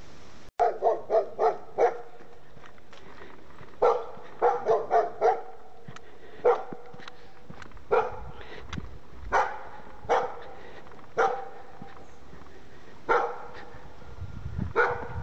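A dog barking: two quick runs of four or five barks in the first five seconds, then single barks spaced a second or more apart.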